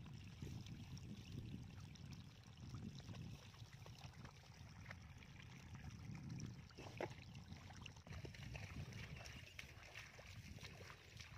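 Faint splashing and sloshing of fish wriggling in shallow muddy water, with a few small splashes about 7 s in, over a low, uneven rumble.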